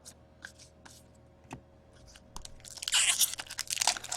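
Foil wrapper of a hockey card pack being torn open and crinkled. A few faint clicks come first, then a dense crackling starts a little over halfway through.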